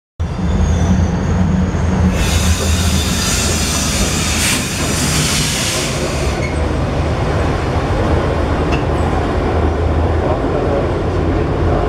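Historic Birseckbahn tram, motor car No. 12 pulling an open trailer, rolling past on its rails with a steady low rumble. A high hiss comes in about two seconds in and stops a little after six seconds.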